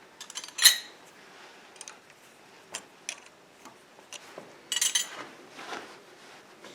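Steel clinks and clatters of a lathe cutting tool being handled and set into the tool post of a TV-4 lathe: a loud clatter near the start, single clinks over the next few seconds, and another burst about five seconds in.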